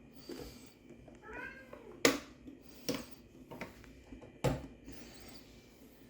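A cat meows once, a short rising-and-falling call about a second in, among several sharp clicks and knocks, the loudest about two seconds in.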